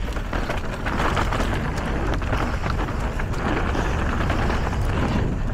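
Electric mountain bike riding fast down a dirt trail: a steady rush of tyre and wind noise with a low rumble, dotted with small clicks and rattles from the bike.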